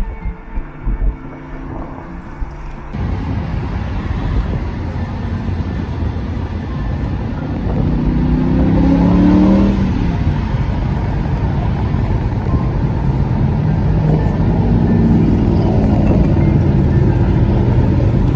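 Music for the first three seconds, then a car engine running while driving, rising in pitch as it accelerates about eight seconds in and again around fifteen seconds in.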